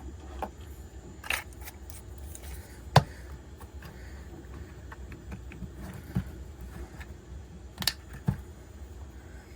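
Scattered light clicks and taps of small 3D-printed plastic fidget parts being handled and fitted together, with one sharper click about three seconds in.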